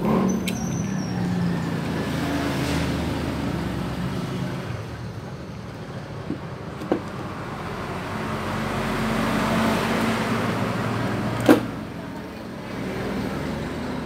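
Road vehicle engine noise, swelling to its loudest late on, with a few metal clicks from the parts of a Yale knob lockset being handled, the sharpest near the end.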